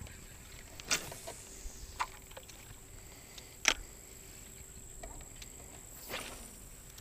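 A few light clicks and knocks of fishing tackle being handled in a boat, the sharpest one about halfway through, over a quiet background with a faint steady high whine.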